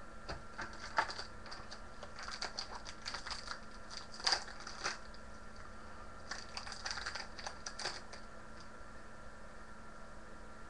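Paper trading cards and their foil pack wrapper being handled: light crinkling and clicking in a few short clusters, the loudest a little past the middle, over a faint steady hum.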